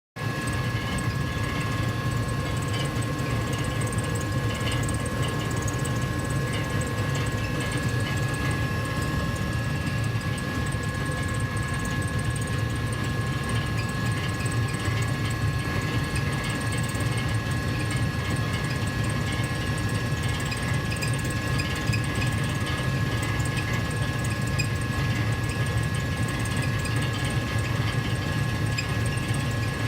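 Gas furnace heater running steadily: a constant low hum with two faint, steady high tones above it.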